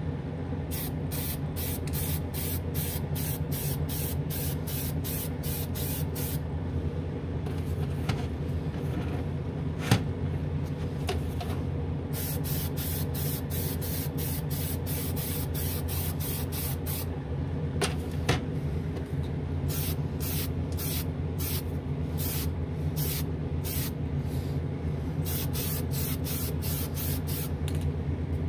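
Aerosol can of Testors Extreme Lacquer spraying in short quick bursts, about two or three a second, in several runs separated by pauses, laying down light coats of paint. A spray booth fan hums steadily underneath.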